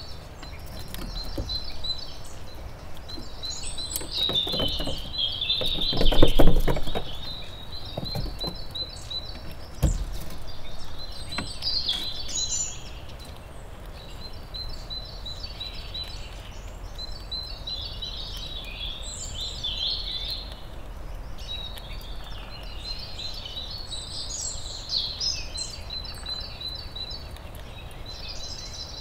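Wild forest birds singing, with fast trills repeated again and again. Close up, a red squirrel crunching and cracking seeds, loudest about six seconds in, and a sharp click near ten seconds.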